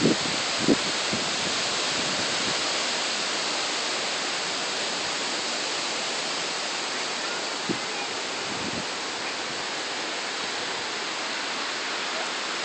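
Steady rushing noise of hurricane wind and rain, with a light knock near the start and another about eight seconds in.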